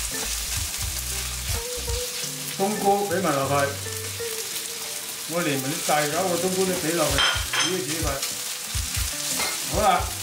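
Chicken, shallots and shiitake mushrooms sizzling in a hot steel wok on high heat, stirred and scraped with a slotted metal spatula.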